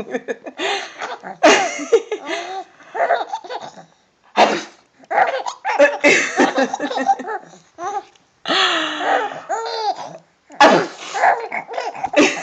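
Baby laughing in repeated bursts, with short pauses between the fits.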